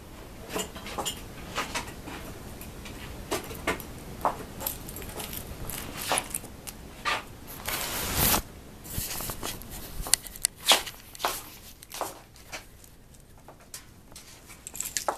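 Household handling noises: scattered clicks, taps and rustles, with a louder scraping rustle lasting about a second near the middle.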